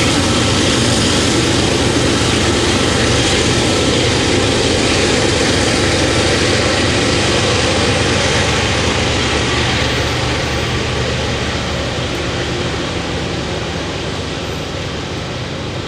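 Diesel locomotives of a CSX coal train running under power, a steady deep engine drone that fades gradually over the last few seconds as the locomotives move away.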